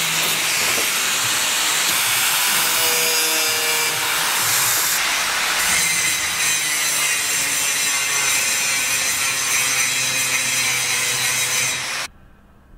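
Electric angle grinder working the steel cab bodywork of a Class 26 diesel locomotive, a steady harsh grinding with a shifting whine. It cuts off suddenly about twelve seconds in.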